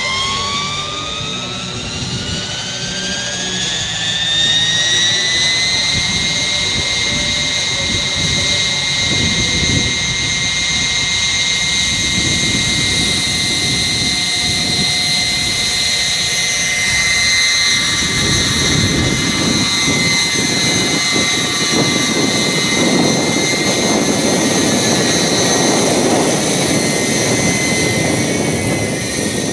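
Small gas turbine of a large radio-controlled scale model Aérospatiale SA 315B Lama helicopter spooling up. Its whine rises steadily for the first six seconds and then holds at a steady high pitch. From the middle on, a rushing rotor noise grows under the whine as the model takes off and flies.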